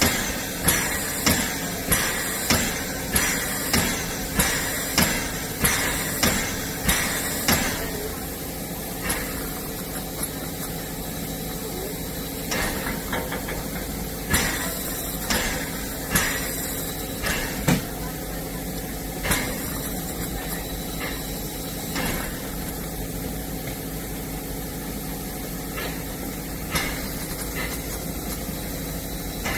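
Narrow-gauge 2-10-2T steam locomotive 99 7241-5 standing in steam, giving a rhythmic knocking of about one and a half beats a second. The beat stops about seven or eight seconds in, and a few single knocks follow over a steady hiss and hum.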